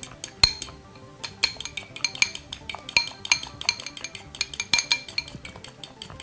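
Metal fork whisking an aloe vera gel mixture in a glass jar: quick, irregular clinks of the fork against the glass, several a second, each with a short glassy ring.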